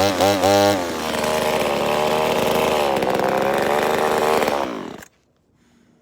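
Chainsaw running, first with a few quick revs, then holding steady, then winding down with a falling pitch and stopping about five seconds in.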